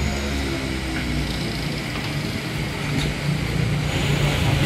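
A motor vehicle's engine running close by in street traffic, its pitch falling over the first two seconds and then holding at a steady low hum.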